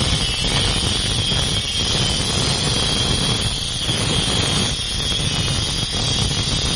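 A power tool cutting into the steel shell of a fridge compressor: a loud, steady noise with a constant high whine and a low rumble underneath.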